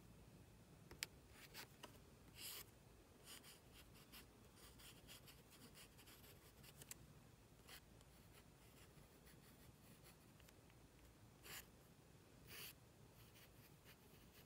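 Faint scratching of a mechanical pencil drawing short strokes on a paint-chip card, with a single sharp tick about a second in.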